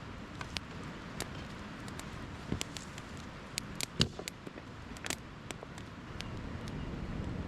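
Small campfire of damp wood crackling, with irregular sharp pops, the loudest about four seconds in. The fire is just catching and burning poorly because the wood is wet.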